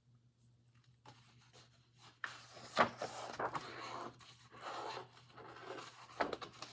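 Soft rustling and scraping of paper as pages of a picture book are handled and turned, with a few sharper crinkles about two and three seconds in.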